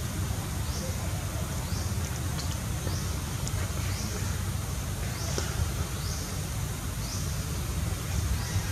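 Outdoor ambience: a steady low rumble of wind on the microphone, with a faint high chirping call repeating about every 0.7 s and a few faint ticks.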